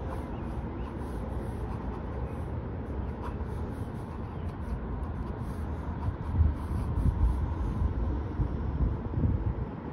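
Steady low outdoor rumble that swells in gusts between about six and nine seconds in, with faint quick scratches of a pen sketching on paper.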